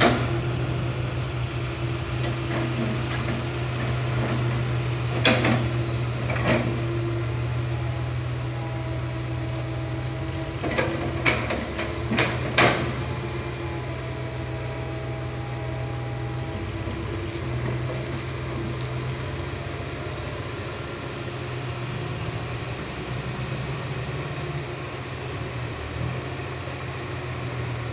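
Komatsu PC160 hydraulic excavator's diesel engine running steadily under work, with a faint whine partway through. Several sharp knocks come in two clusters, about five seconds in and again around eleven to thirteen seconds.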